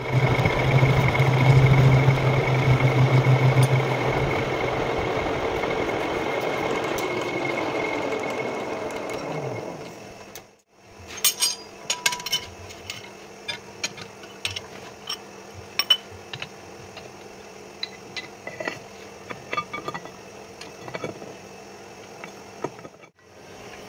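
Metal lathe facing a steel plate clamped in a four-jaw chuck: a steady hum with a high cutting tone, then the motor stops a few seconds in and the chuck coasts down, the sound fading over several seconds. After that come scattered light clinks and taps of the metal plate and chuck being handled.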